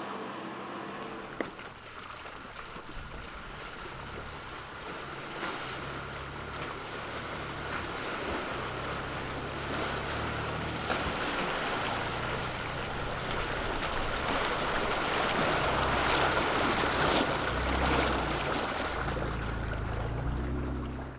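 Ford Ranger Raptor pickup's engine running at low revs as it wades through a muddy creek, with water sloshing and splashing around the wheels. The splashing grows louder in the second half. A single sharp knock comes about a second and a half in.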